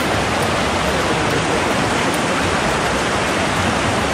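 Shallow river water rushing fast over rocks in rapids: a loud, steady rush.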